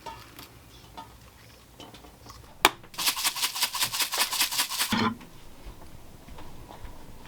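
Kitchen utensil work: a sharp click, then about two seconds of fast, even scraping or rattling strokes, several a second.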